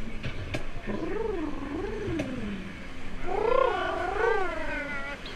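Two long, wavering animal yowls from an animatronic's sound effect; the second call starts about three seconds in and is louder.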